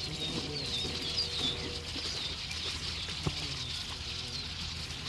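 Wild birds calling over an open field: thin, high twittering chirps with softer, lower calls beneath, over a steady low outdoor rumble, and a single sharp click a little past the middle.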